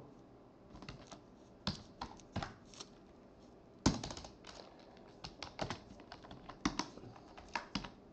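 Computer keyboard typing: irregular keystrokes entering router commands, with one louder keystroke about four seconds in.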